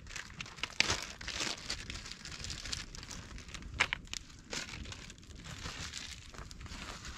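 Packaging being handled, crinkling and rustling, with irregular sharp clicks and crackles, the loudest about a second in and near the four-second mark.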